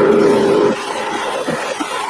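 Electric polishing/buffing machine running while small chrome ratchet parts are buffed on its wheel. A steady hum drops about three-quarters of a second in and turns quieter and uneven.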